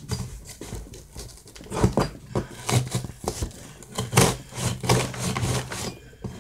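Hands working at a cardboard shipping box, tearing and scraping at it in short, irregular rasping strokes.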